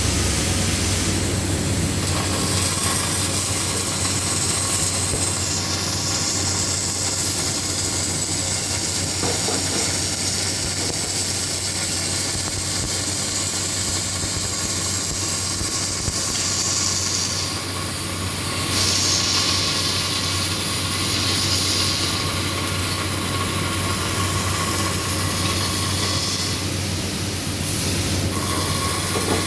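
Robotic arc welding: a steady hissing, crackling arc with a constant low electrical hum underneath.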